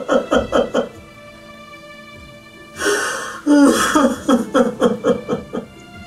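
A man sobbing in short, rapid, broken bursts. A sharp intake of breath about three seconds in is followed by a longer run of sobs. Soft background music plays under it.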